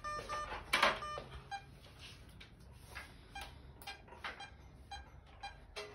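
Handheld patient monitor beeping steadily in time with the anaesthetised dog's pulse, about two beeps a second, after a quick run of higher beeps at the start. A loud knock sounds just under a second in.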